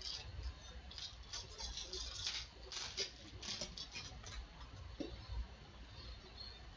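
Baseball trading cards being handled and sorted by hand: a busy run of short rustles, slides and taps of card stock.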